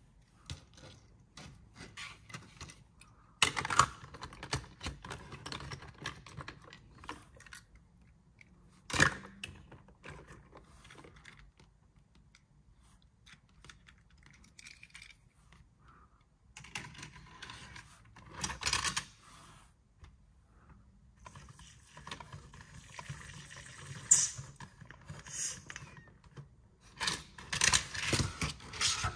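Die-cast toy cars and a plastic toy car-wash playset being handled: scattered small clicks, taps and rattles, with a few sharper knocks.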